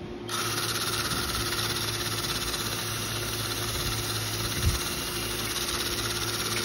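Ryobi cordless drill running steadily as its bit bores into a wooden beam, starting about a third of a second in, with one brief knock past the middle.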